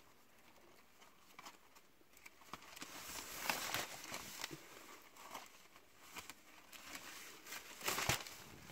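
Large sheets of kite paper rustling as they are lifted, flipped and laid down one on another, with louder rustles about three and a half seconds in and again near the end.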